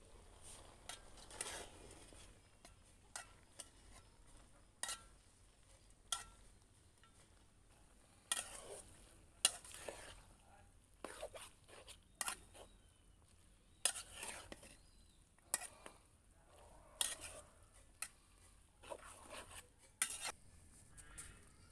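A metal spatula stirring Malabar spinach leaves in an aluminium pot, with irregular clinks and scrapes of metal against the pot.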